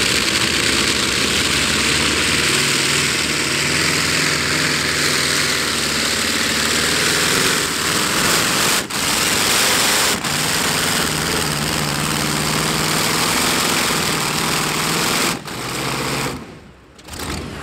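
Pratt & Whitney R-4360 Wasp Major 28-cylinder radial aircraft engine of a modified pulling tractor, running at high power under load as it drags the weight sled down the track. The sound drops away abruptly about a second before the end.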